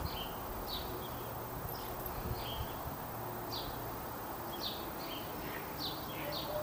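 Small birds chirping: short, high chirps, some sliding downward, repeated many times over a steady low background hum.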